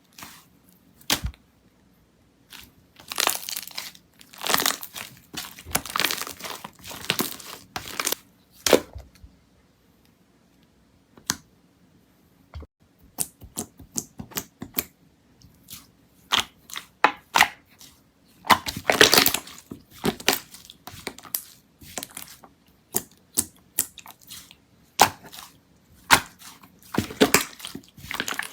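Slime being squeezed, pressed and stretched by hand, giving irregular runs of sticky clicks and crackles, with a near-quiet pause about nine to twelve seconds in.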